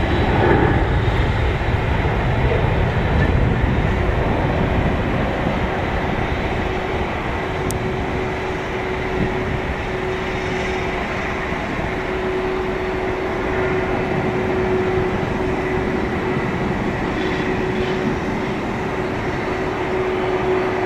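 Airbus A320-232 jet, with IAE V2500 turbofan engines at takeoff thrust, heard through its takeoff roll and climb-out: a loud, steady broad rumble with a droning tone that stands out more clearly after about six seconds.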